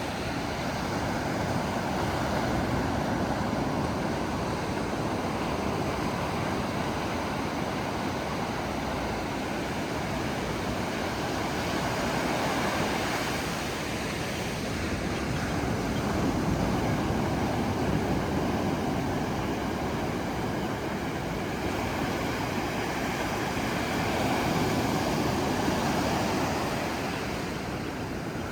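Ocean surf washing in, a steady rush that swells and eases every several seconds.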